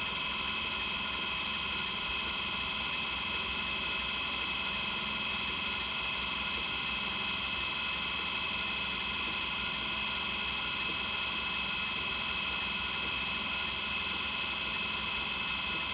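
Mini bench drill press motor running steadily at constant speed, a high whine made of several fixed tones, while the bit drills into a pocket knife pin.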